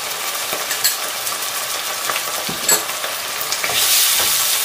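Sliced onions and tomatoes sizzling in hot oil in a nonstick pan while ginger-garlic paste is stirred in with a wooden spatula. A single knock about two and a half seconds in, and the sizzle grows louder near the end.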